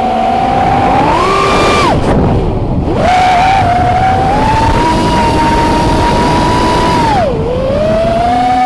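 FPV racing quadcopter's brushless motors and propellers whining in flight, the pitch rising and falling with the throttle. It climbs about a second in, cuts out briefly about two seconds in, comes back up and holds steady for a few seconds, then dips and climbs again near the end.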